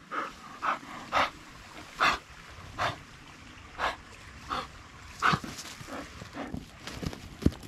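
Wire-haired pointer sniffing hard with her nose in a truffle hole, short breathy huffs about once a second, with a few soft knocks near the end.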